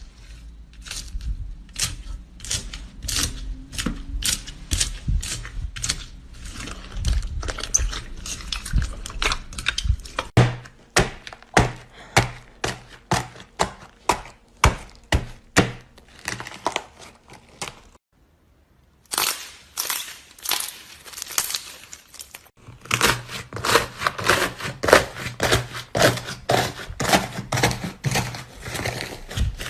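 Slime being squeezed and poked, giving a run of wet clicking pops about two to three a second. After a short break it turns to dense, continuous crackling.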